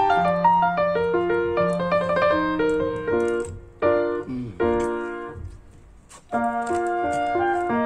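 Background piano music: a run of plucked-sounding notes over a held low note, dropping away almost to nothing for a moment about three quarters through before the playing picks up again.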